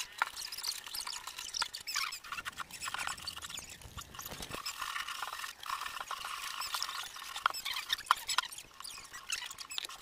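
A hand rubbing wet mud hard into the wood of a beehive box to seal its cracks, making irregular squeaks and scrapes.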